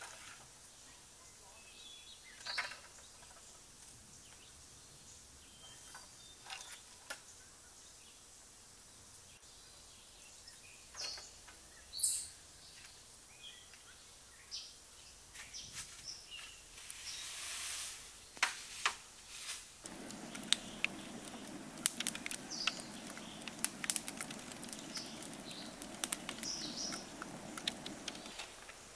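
Outdoor ambience with a few brief bird chirps and scattered clicks and taps. About twenty seconds in, a steady low rushing noise with frequent sharp crackles starts and stops again just before the end.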